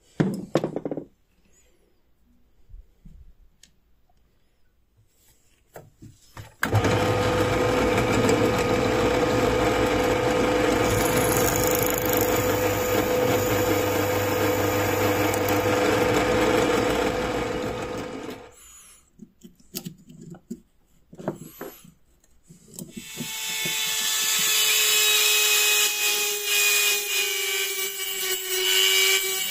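Drill press running steadily for about eleven seconds while its bit drills into the old doorbell's metal bracket, then stopping. A few knocks follow, and then another power tool starts and runs to the end.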